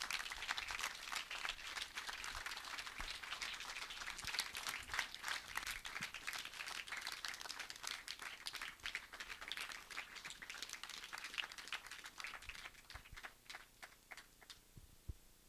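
Audience applauding, the clapping thinning out to scattered claps and dying away near the end.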